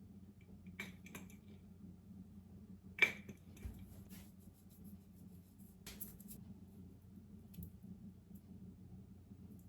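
A few light clicks and taps, the sharpest about three seconds in, over a faint steady hum.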